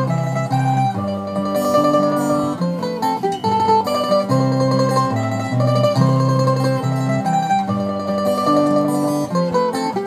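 Two acoustic guitars and a mandolin playing an instrumental passage of a folk song, with no singing.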